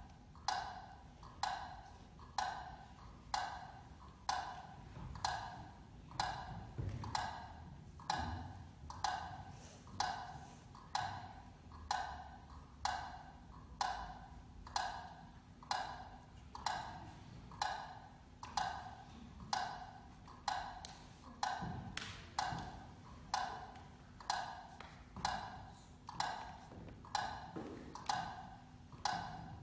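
Steady clock-like ticking: a hollow, wood-block-like knock a little more than once a second, each with a short ringing tail.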